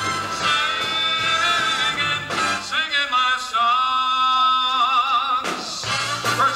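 Male pop singer singing live into a handheld microphone with a backing band. Midway he holds one long note that ends in vibrato while the band drops back, then the band comes in again.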